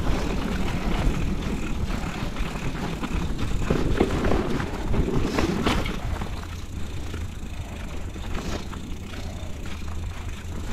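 Mountain bike rolling along a dirt singletrack: tyre noise on the dirt with the bike's clicks and rattles over bumps, over a steady low rumble of wind on the camera microphone. It is busier in the first half and eases off about halfway through.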